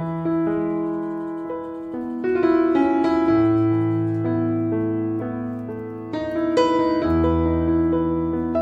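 Background piano music playing slow, held chords.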